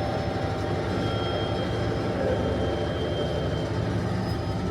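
Steady low rumble of a train and railway machinery, with a few faint thin high whines running over it.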